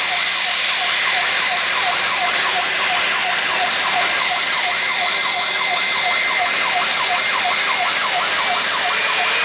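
Jet aircraft engines running with a steady loud noise and a high whine. A short chirp repeats about two and a half times a second, and a low tone begins to rise near the end.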